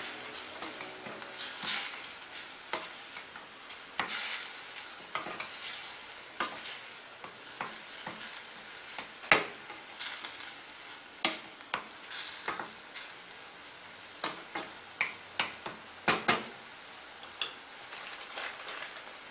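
Diced chicken sizzling as it sautés in a stainless steel pan, stirred with a wooden spoon that scrapes and knocks against the pan at irregular moments. The stirring stops near the end, leaving the steady sizzle.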